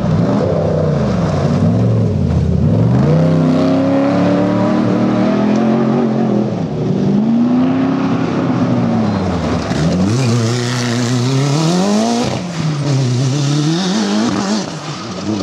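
Off-road race vehicles, a race truck and then a single-seat buggy, driving hard past on a gravel road. Their engines rev up and fall back several times as the drivers accelerate, lift off and shift, with a steep climb in pitch about two-thirds of the way through and tyre noise on the gravel.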